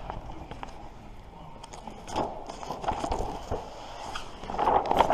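Large sheet of vehicle-wrap vinyl and its paper backing rustling and crackling as it is handled and positioned against a van panel, with small clicks and taps, louder near the end.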